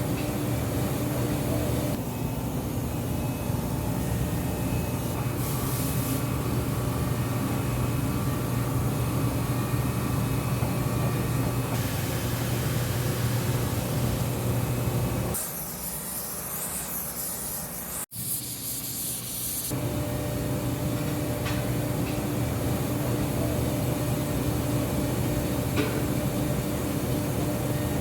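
A machine running with a steady hum and whirr. About halfway through, the hum gives way for a few seconds to a loud, high hiss, then resumes.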